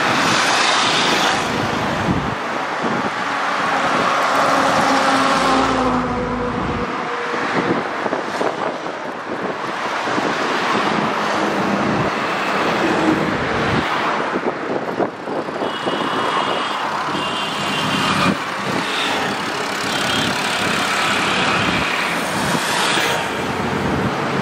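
Road traffic noise: vehicle engines running steadily, with two short high tones about two-thirds of the way through.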